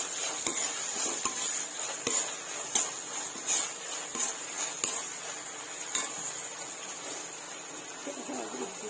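Steel spoon stirring chopped capsicum and onion in sauce in an aluminium kadhai, knocking against the pan about once a second for the first six seconds, then more sparsely, over a steady sizzle of frying.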